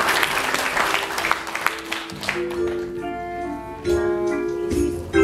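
Audience applause that dies away about two seconds in, as instrumental music starts with a run of clear single notes, getting louder near the end.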